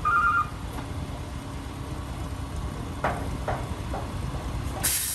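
Concrete mixer truck's diesel engine running steadily, with its reversing alarm beeping once at the start. Three knocks come about three seconds in, and a sudden hiss starts just before the end.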